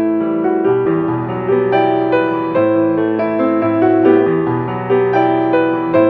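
Background piano music: a steady flow of sustained notes struck one after another.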